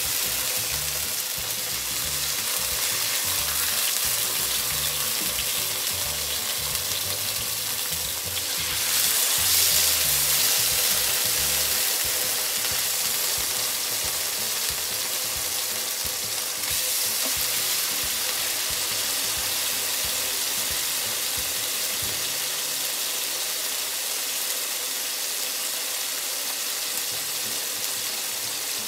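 Marinated pork chops sizzling as they fry in hot oil in a frying pan. The steady frying hiss gets louder about nine seconds in and eases back around sixteen seconds.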